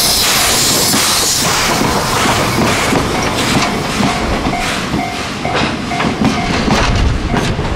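Steam-hauled train passing: a strong hiss of steam in the first second or so, then the wheels clacking over rail joints as the cars roll by.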